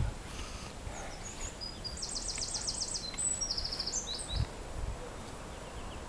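A small songbird singing fast, high trills about two seconds in, with a few short chirps around them, over a steady low rumble of wind and handling noise, and a brief low thump near the end.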